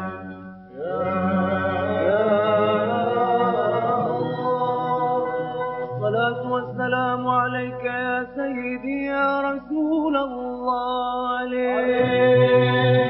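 A male voice sings a slow Aleppine funeral chant (tajwiq) in long, held, ornamented melismatic notes over a steady low drone. There is a brief break about half a second in.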